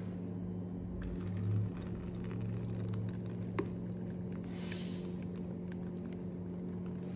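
Water and soft cooked macaroni tipped from a coffee mug into a plastic colander, faintly dribbling and squishing, with a few light clicks.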